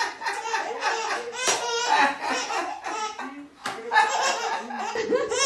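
A man's deep belly laughter mixed with a baby's giggling, in quick repeated bursts, with a couple of sharp claps.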